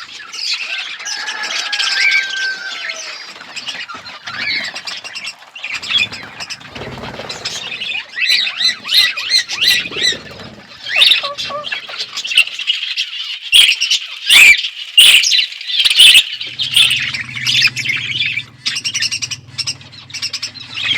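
A flock of budgerigars chattering and warbling without a break, with a few sharp clicks or wing flutters in the middle. A low steady hum joins about three-quarters of the way through.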